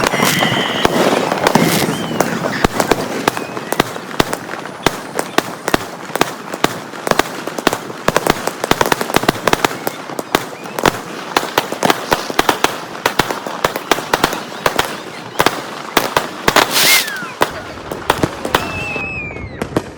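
Fireworks going off in a dense run of sharp cracks and bangs, several a second. A few whistling tones glide in pitch near the end.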